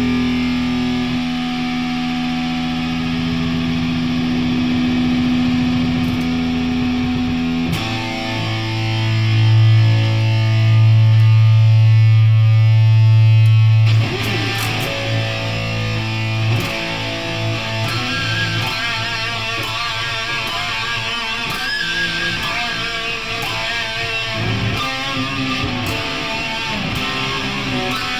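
Electric guitar played through distortion and effects. A note is held for about eight seconds, then a loud low note sustains until about fourteen seconds in. After that it turns into busier picking and strumming with a wavering, warbling higher line.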